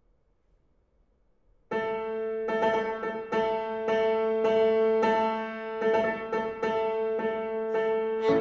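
Steinway grand piano playing the introduction of a violin piece: after nearly two seconds of silence, the same chord is struck over and over, about ten times, each ringing into the next.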